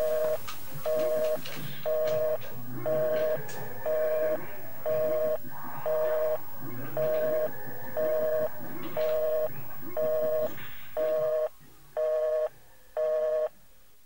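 Telephone busy signal: a steady two-note tone beeping on and off about once a second, about fourteen beeps. Faint background voices run under it and fade out about eleven seconds in, leaving the last few beeps alone.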